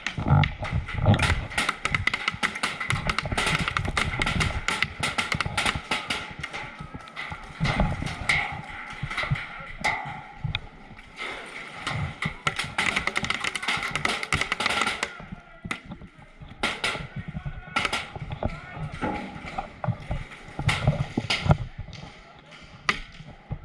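Paintball markers firing and paintballs striking, many sharp pops in quick succession for about fifteen seconds, then sparser shots, with players shouting in the background.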